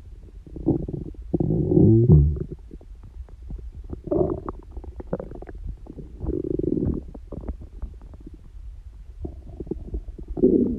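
A person's stomach growling: irregular gurgles and rumbles with short crackles between them, including a long rumble that falls in pitch about two seconds in. The growling is not from hunger or a stomachache.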